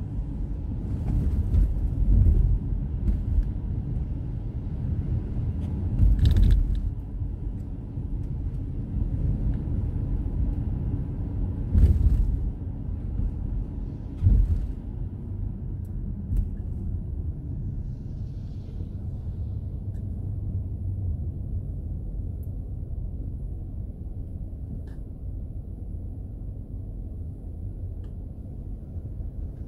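Steady low rumble of road and engine noise inside a car cabin as it drives on wet pavement. Brief sharp knocks come about 6, 12 and 14 seconds in. The noise grows quieter and steadier in the second half as the car comes to a stop.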